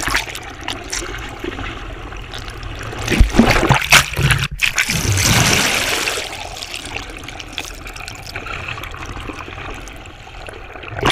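Water rushing and bubbling over a GoPro camera held underwater alongside a boat, heard from below the surface. There are louder surging splashes about three to six seconds in, and the sound cuts off when the camera leaves the water at the end.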